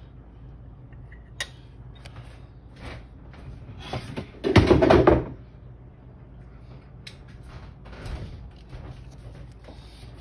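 Kitchen handling noises at the counter: scattered light knocks and clicks, with one louder scraping rustle about four and a half seconds in.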